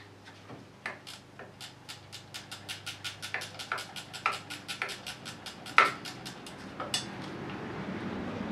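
Ratcheting wrench clicking in quick, even strokes, about five clicks a second, as a 15 mm bolt on the back of a Cummins injector pump is backed out, with a couple of louder metallic clacks near the end.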